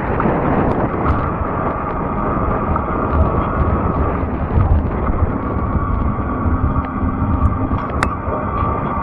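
Wind buffeting the microphone during a fat-tire e-bike ride, a constant low rumble, with a steady high whine from about a second in and a few sharp clicks.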